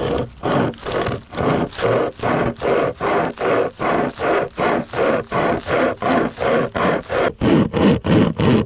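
Hand saw cutting through a dry, dead log: steady back-and-forth rasping strokes, about two and a half a second, each stroke a scrape of teeth through wood. The strokes sound deeper near the end.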